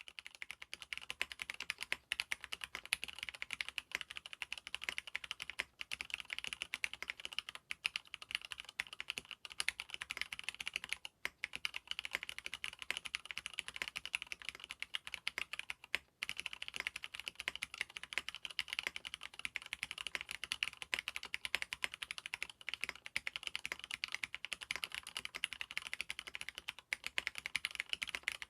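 Continuous fast typing on an mStone Groove T SF Felt mechanical keyboard with lubed Cherry MX Red linear switches in an aluminium plate, with silicone dampening in the case. Dense key clicks, with short pauses about eleven and sixteen seconds in.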